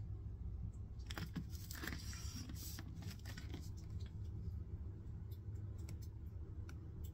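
Soft scraping and rustling as feet in flip-flops shift against the phone, strongest about one to three seconds in, with scattered small clicks over a steady low hum.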